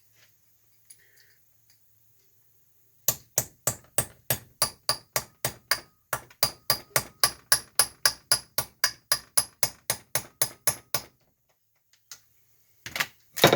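Hammer striking metal while driving a part out of a Chrysler 8 3/4 rear differential: a fast, even run of about thirty blows starting about three seconds in, then a few more hits near the end.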